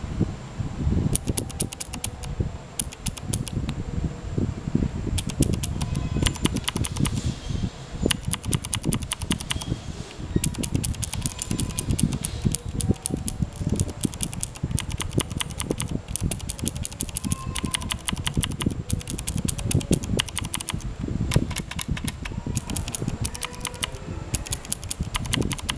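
Typing on a mechanical keyboard with clicky blue switches: fast runs of sharp key clicks over dull key thuds, broken by a few short pauses.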